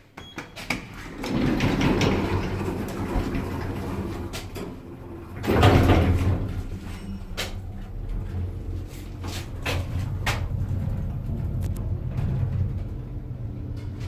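Passenger lift heard from inside the car: the car doors slide shut after a floor button is pressed. About five and a half seconds in the car starts off with a loud surge, then travels with a steady low hum and scattered clicks.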